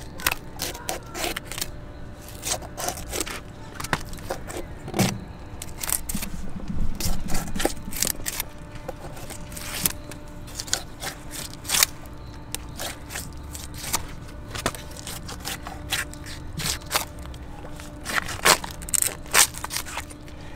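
Fillet knife scraping and clicking along the rib bones of a large cubera snapper as the fillet is cut away from the rib cage: an irregular run of short, sharp ticks and scrapes.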